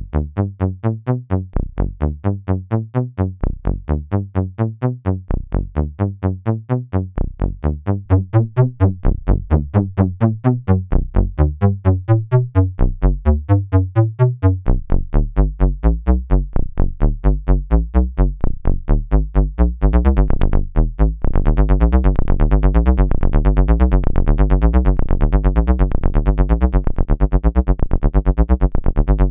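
Behringer System 100 analog modular synthesizer playing a resonant-filtered bass line as a fast, even stream of repeating notes. About two-thirds of the way in, after a brief break, the notes turn brighter and fuller.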